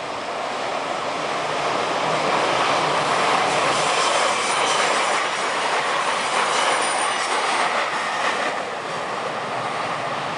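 A train passing close by: the steady rumble and rush of wheels on rail, swelling over the first few seconds and easing slightly near the end.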